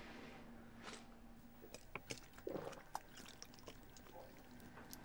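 Near silence: faint room tone with a few soft small clicks and a faint steady hum that stops after about a second and a half.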